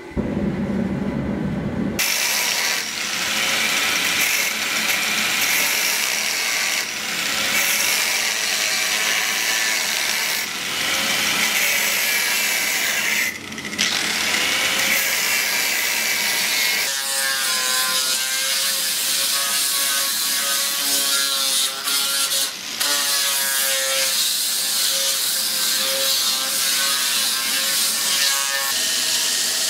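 A forge burner rushes with a low roar for the first two seconds. Then an angle grinder cuts and grinds a steel bar held in a vise: a loud, continuous abrasive screech from the disc on the metal. In the second half the motor's whine wavers in pitch, and it drops away briefly twice.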